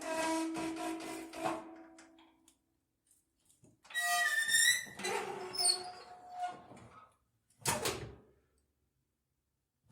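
An oven door squeaking in two long, wavering creaks, the second one higher and gliding in pitch. A short thunk comes near the end, then silence.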